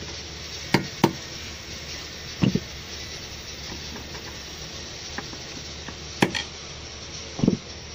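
Sharp metal taps on a steel rod held against the lock ring of a vacuum brake booster's diaphragm hub, gently driving the lock into its seat. About six irregular strikes: two about a second in, a duller knock at two and a half seconds, two more around six seconds, and another dull knock near the end.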